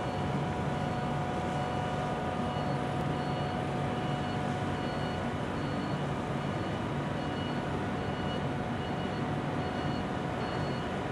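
Steady cabin noise of a moving vehicle: an even rumble and hiss with a constant whine, and faint high beeps repeating at a steady pace.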